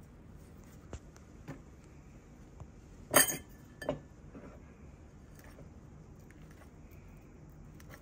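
Metal fork clinking and scraping against a ceramic bowl while mashing banana: a few light taps, then a louder cluster of clinks about three seconds in and another just after.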